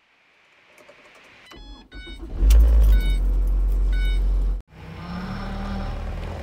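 Car ignition: the key turns, a dashboard chime beeps in short bursts, and the engine cranks, catches and settles into a steady idle. After a sudden cut, the engine runs with a rising note as the car pulls away.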